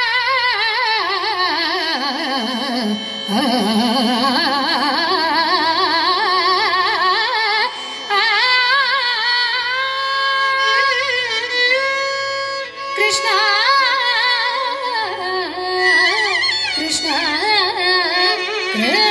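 Carnatic classical music: a richly ornamented melody with constant wavering pitch slides, over a steady drone.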